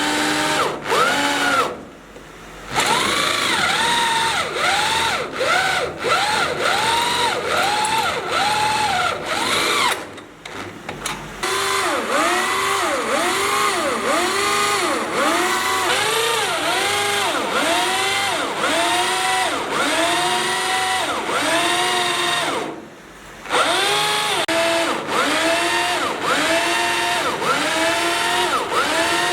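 Electric power drill boring into steel. Its pitch rises and falls over and over, a little under twice a second. It breaks off briefly three times: about 2 seconds in, around 10 seconds and around 23 seconds.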